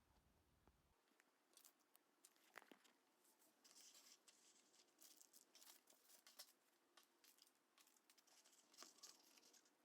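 Faint, irregular rustling and scratching of hands handling craft materials, with a few light clicks, likely rope being laced through a kit bag.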